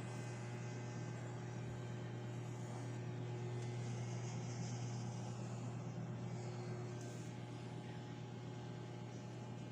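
Desktop computer fan running steadily with a low hum and an even whoosh after power-on, a sign that the motherboard powers up.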